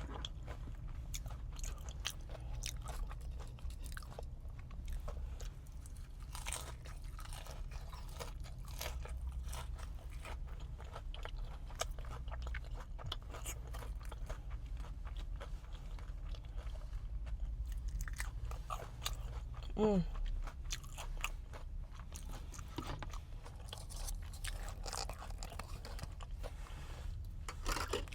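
Close-miked crunching and chewing of extra-crispy fried fish and onion rings: a steady run of small crisp bites and mouth sounds.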